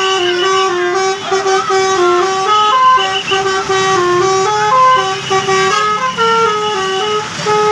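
Bus telolet horn playing a tune: a continuous string of loud musical horn notes stepping up and down in pitch every quarter to half second.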